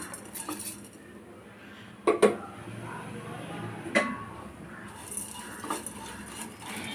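Kitchen utensils knocking and clinking against a non-stick pan of dry vermicelli, with two sharper knocks about two and four seconds in and a few lighter taps as a spatula starts moving the vermicelli.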